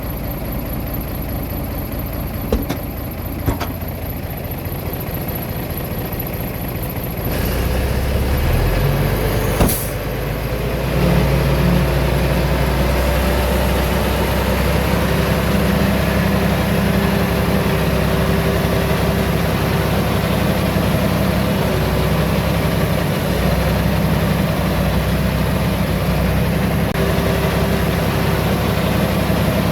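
Heavy diesel engine of earthmoving machinery running, stepping up in level about seven seconds in, with a short sharp hiss near ten seconds, then running louder and steadily.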